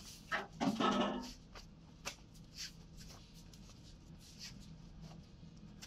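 Cloth rustling and rubbing right against the microphone, loudest between about half a second and a second and a half in, followed by scattered light clicks and ticks.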